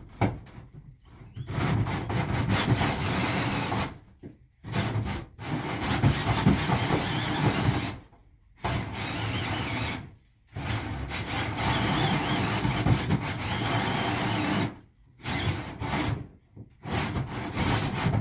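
Power drill with a hole saw cutting through the sheet-metal roof of a school bus. It runs in several bursts of a few seconds each, stopping briefly and starting again.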